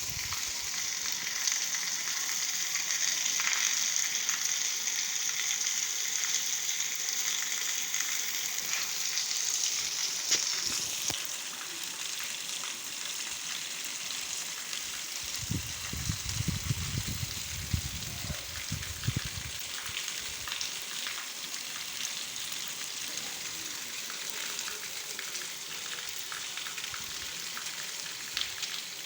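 Steady rain falling, a dense hiss of many small drop ticks. It is heavier for the first ten seconds or so, then eases a little. A low rumble comes in for a few seconds around the middle.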